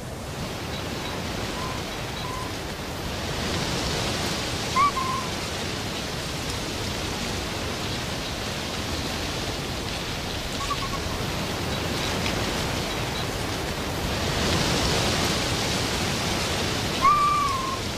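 Cold wind blowing in gusts through forest, swelling twice, with a few short bird calls.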